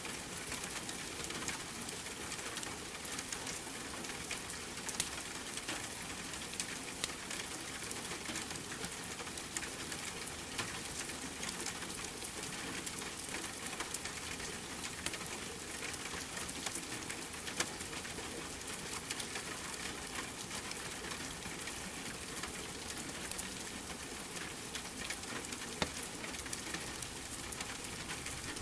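Steady rain falling together with a wood fire crackling, small sharp pops scattered throughout.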